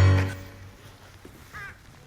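Background music ending on a low note that fades within the first half-second, then one faint crow caw about one and a half seconds in.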